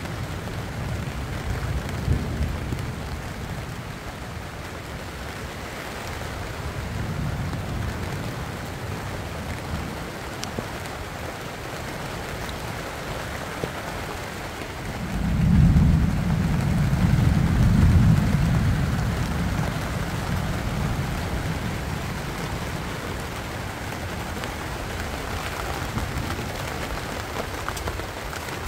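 Steady rain falling on broad banana leaves, with low thunder rumbling. A long, heavier roll of thunder begins about halfway through and fades over several seconds.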